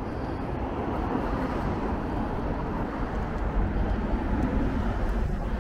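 Steady road traffic noise from a city street, with a low rumble throughout.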